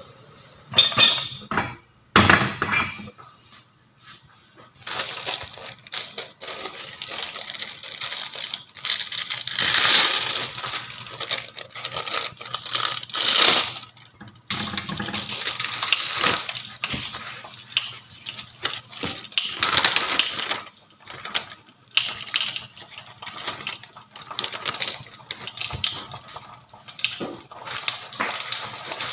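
Kitchen handling sounds: irregular clattering, clicking and rustling of cookware and food being handled, in short uneven bursts with a brief lull a few seconds in.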